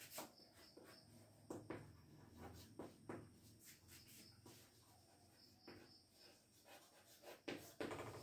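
Chalk writing on a blackboard: faint, short taps and scratches, one per stroke, with a louder run of strokes near the end.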